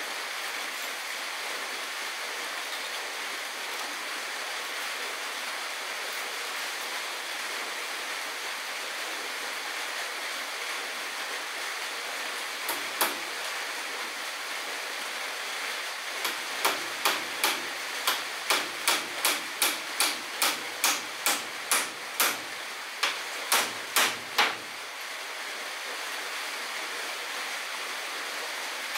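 Hammer driving nails into wooden cladding boards: a single blow, then after a pause a run of about eighteen blows at about two a second, over a steady hiss.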